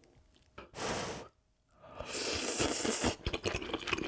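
A person takes in a hot mouthful of beef brisket and noodles from a pot of spicy soft-tofu stew. A short breathy blow or slurp comes just under a second in, then a longer, crackly slurp about two seconds in, followed by small wet chewing clicks.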